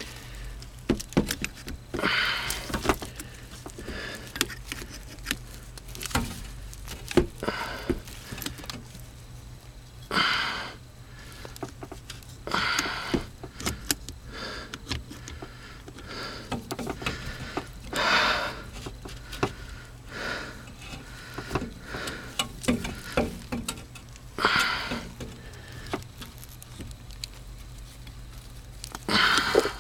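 Irregular handling noise: scrapes and rustles every couple of seconds with scattered sharp clicks and knocks, over a low steady hum.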